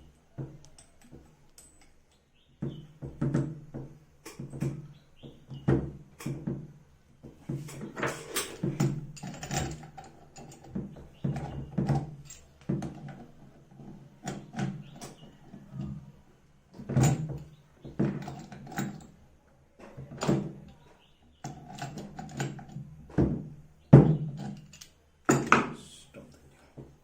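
Irregular thunks, knocks and clatter of hands and tools working on plumbing fittings while a booster pump's hose connections are fitted and tightened.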